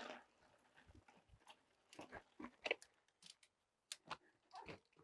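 Faint, irregular crunches and clicks of a mountain bike rolling over a dirt forest trail, tyres on loose dirt with the occasional rattle or tick from the bike, a few per second.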